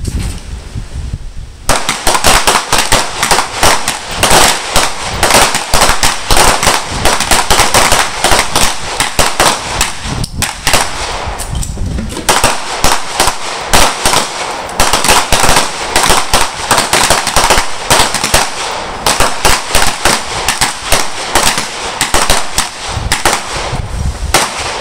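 Several handguns firing on a shooting line at once: a dense string of rapid, overlapping shots that starts about two seconds in and carries on through a timed 25-second course of fire.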